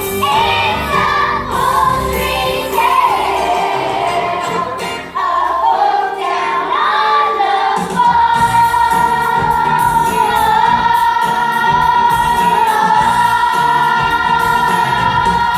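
Ensemble of singers with musical accompaniment performing a stage-musical number. From about eight seconds in they sustain one long final note.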